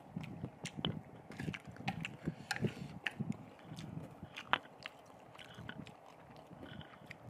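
A person chewing and biting instant noodles, with wet mouth sounds and scattered sharp clicks of metal chopsticks against a steel tray.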